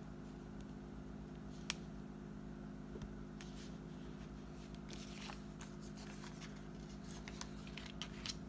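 Paper planner sticker sheets being handled, with stickers peeled and pressed onto a planner page. There is one sharp click a little under two seconds in, then a run of small paper crackles and ticks in the second half, over a steady low hum.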